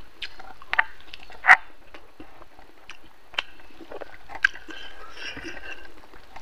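Close-miked mouth sounds of a man eating pork and rice: chewing with short wet smacks and clicks scattered unevenly throughout, the loudest about one and a half seconds in.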